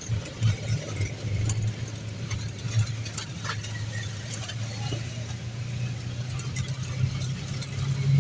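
Auto-rickshaw engine running as the rickshaw drives along, heard from the passenger seat: a steady, slightly pulsing low drone with scattered light clicks and rattles.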